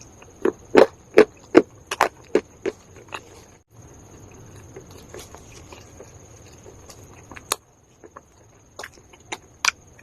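Calabash chalk (uko clay) being bitten and chewed: a run of sharp crunches, two or three a second, in the first three seconds, then softer chewing with a few crisp crunches near the end.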